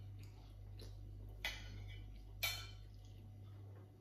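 Eating with a metal spoon from a plate: light clicks and scrapes, with two sharper clinks of the spoon about a second apart, over a steady low hum.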